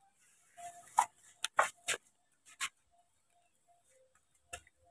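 A few light, irregular clicks and knocks from the jacked-up front wheel of a Perodua Myvi as it is pushed up and down by hand. This shows free play in the front suspension, which the mechanic puts down to a worn shock absorber top mount.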